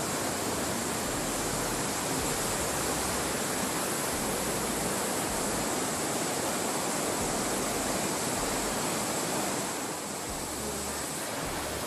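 Rushing water of a rocky jungle stream cascading over boulders: a steady, close wash of noise that drops a little about ten seconds in.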